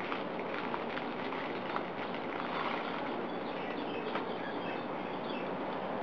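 Steady outdoor background noise with faint, short chirps of small birds between about two and five seconds in, and a few light ticks in the first two seconds.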